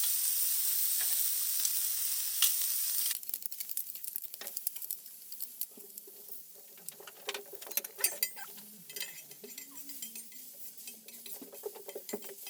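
Chopped garlic sizzling in oil on a thick steel griddle: a loud hiss that drops off abruptly about three seconds in, giving way to quieter crackling and the clicks and scrapes of a spatula stirring it.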